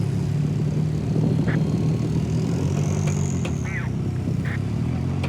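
Rock crawler's engine running steadily at low revs while climbing over rock, with a few short high squeaks.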